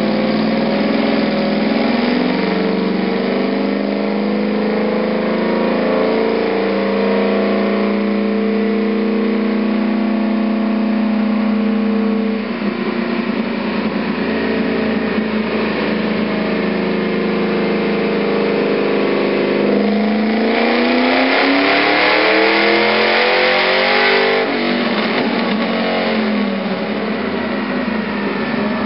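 Ford F-150 SVT Lightning pickup's supercharged V8 running on a chassis dyno: held under load at a fairly steady pitch, easing off about twelve seconds in. Later comes a full-throttle pull, the engine note climbing steadily for about four seconds before the throttle is lifted and it falls away.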